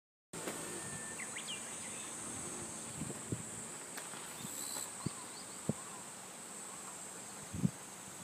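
Insects droning in a steady, high-pitched chorus, with a few short bird chirps and a few soft thumps.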